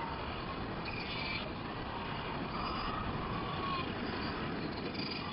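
Steady ambient noise of a northern fur seal breeding beach, with a faint drawn-out call in the middle.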